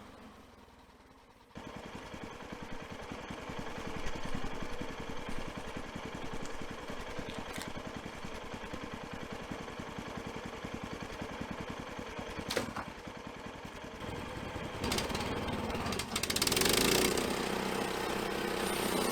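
Engine of an EZ Boardwalk Jr. portable bandsaw mill running steadily. It comes in abruptly about a second and a half in and grows louder and noisier near the end.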